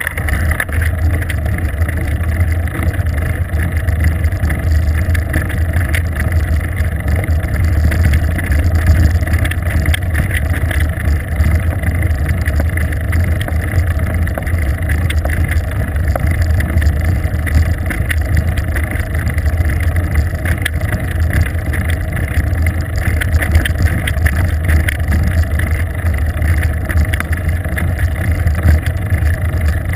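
Steady loud low rumble of wind buffeting and tyre-on-asphalt noise, picked up by a GoPro camera mounted on a moving bicycle.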